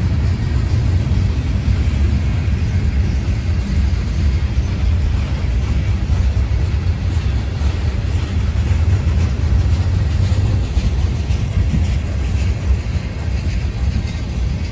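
Freight train's boxcars and tank cars rolling past: a steady low rumble of steel wheels on the rails.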